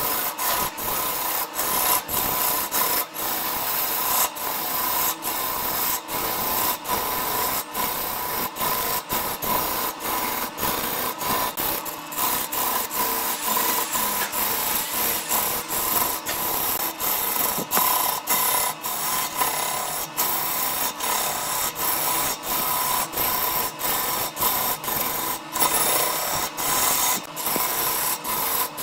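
Turning gouge cutting into a spinning wood blank on a Burt wood lathe: a continuous rasping scrape of shavings being peeled off, broken by many brief gaps as the cut catches and eases.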